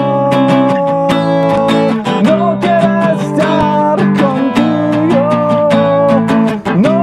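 A man singing, accompanied by a strummed acoustic guitar, in a solo live song performance.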